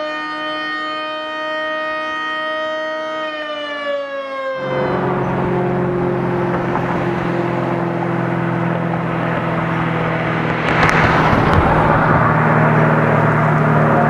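Outdoor warning siren sounding a chord of several steady tones, which dip slightly and then cut off abruptly about four and a half seconds in. After that, a steady low engine-like hum with road noise, growing louder with a rush about eleven seconds in.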